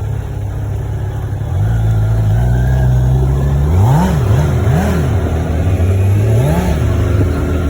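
Kawasaki Z900's inline-four engine on its stock exhaust, idling, then stepping up to a higher steady speed. It is then blipped three times, each rev rising and falling quickly.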